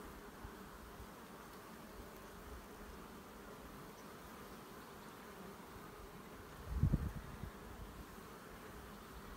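Steady hum of a honey bee colony around an open hive, with bees on the frame held out of the box. A brief low thump about two-thirds of the way through.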